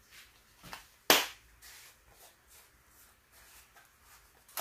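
Grated Parmesan canister being handled: one sharp click about a second in, then a few faint taps and rustles.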